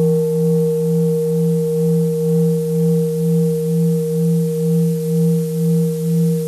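Sustained ringing drone: a steady low tone with several higher overtones, its level pulsing evenly a couple of times a second.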